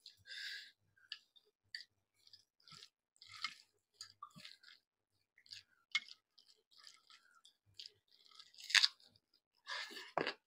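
A person chewing food close to the microphone: irregular short chewing sounds, the loudest about nine seconds in.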